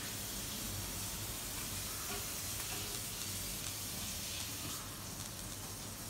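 A steady hiss with no distinct sounds standing out, easing slightly near the end.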